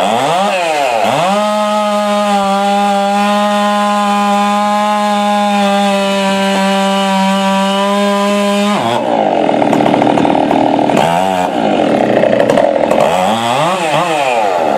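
Large gas chainsaw running at full throttle through wood. Its revs dip and recover near the start and twice in the last few seconds. Through the middle it holds one steady high pitch for about seven seconds.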